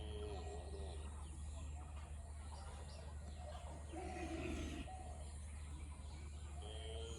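Faint outdoor ambience: distant calls, three times, over a steady low hum.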